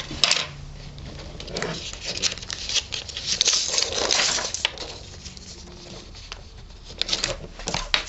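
Sheets of paper being handled and rustled while drawings are swapped, with a louder stretch of crinkling in the middle and a few sharp taps near the start and near the end.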